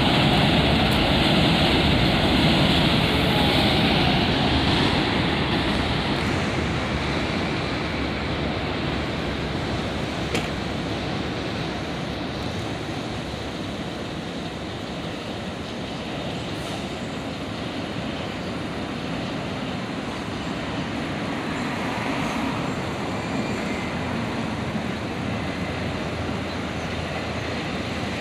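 Vehicle noise: a loud, even rush that dies down over the first several seconds, then a steady lower rumble of traffic.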